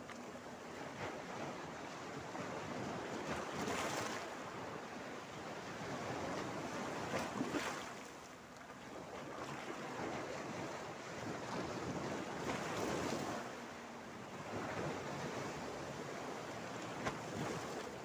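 Small Mediterranean waves breaking over a flat rock ledge at the shoreline and washing back off it, swelling and easing every few seconds. A couple of sharper splashes come about seven seconds in and near the end.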